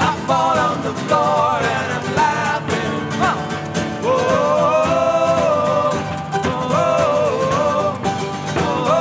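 Live acoustic band playing, with strummed guitar, mandolin and a rope drum, while several male voices sing together in harmony, holding long notes about halfway through.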